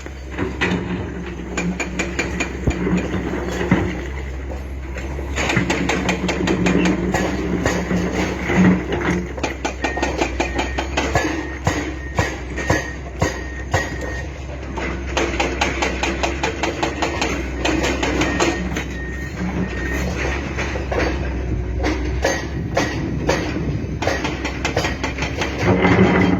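Excavator at work: a steady engine hum under dense, rapid knocking and clanking of metal.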